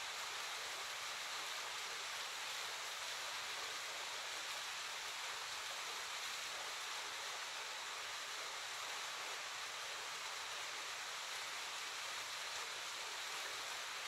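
Small waterfall: a steady, even rush of falling water that does not change.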